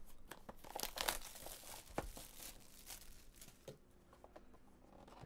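Plastic shrink wrap on a trading-card hobby box crinkling and tearing as it is slit and pulled off, a run of crackles and rips that thins out over the last couple of seconds.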